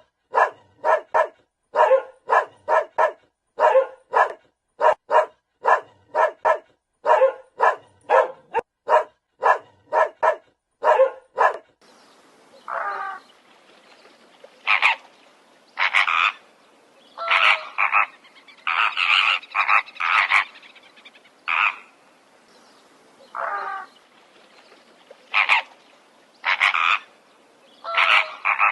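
Animal calls: a fast, even series of short calls, about two or three a second. About twelve seconds in it changes to slower, irregular calls over a faint steady hiss.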